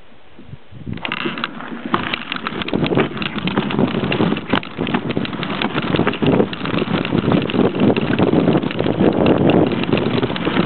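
Mountain bike riding over a rocky dirt singletrack: tyres on stones and gravel with a constant rattle and many small knocks from the bike, and wind buffeting the microphone, starting about a second in.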